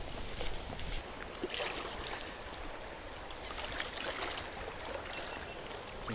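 Fast-flowing river water rushing steadily around a person wading through the current, with brief louder splashes as the legs push through.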